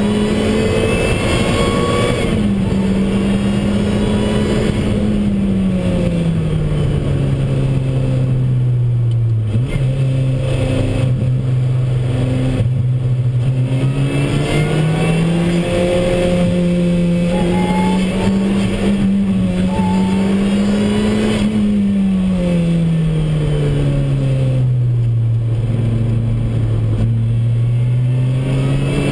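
Lotus Exige S engine heard from inside the cabin while lapping a circuit: the engine note drops away twice as the car slows for corners and climbs slowly in between under acceleration, over steady road and wind noise.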